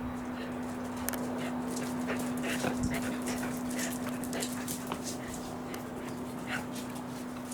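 A Welsh corgi making short, squeaky whimpering sounds amid light clicks, over a steady low hum.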